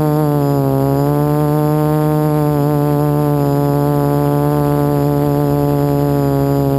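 HoverThings Flip FPV quadcopter's electric motors and propellers buzzing in a hover, recorded from the camera on the airframe. It is a loud, steady buzz whose pitch wavers up and down with the throttle, dipping briefly about a second in.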